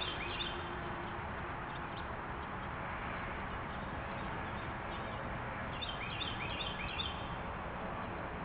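Small birds chirping, heard through a trail camera's microphone over steady background hiss. There are a few short rising chirps at the start and a quick run of about five around six seconds in.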